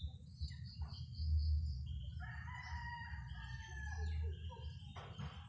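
A rooster crowing: one long, drawn-out call starting about two seconds in, preceded by a quick run of high chirps.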